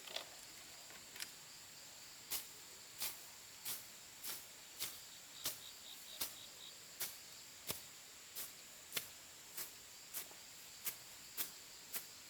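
A steady run of sharp strikes, about three every two seconds, like a hand tool hitting wood or bamboo, over the constant high-pitched drone of insects.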